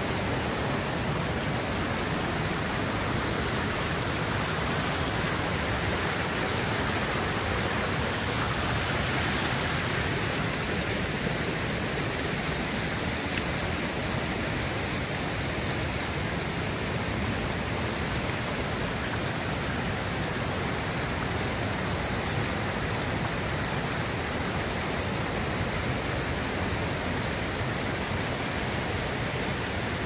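Small waterfall running down stepped stone ledges: a steady rush and splash of falling water.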